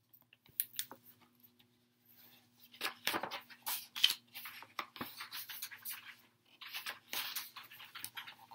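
Rustling, scraping and clicking of a picture book being handled and picked up, in short irregular bursts.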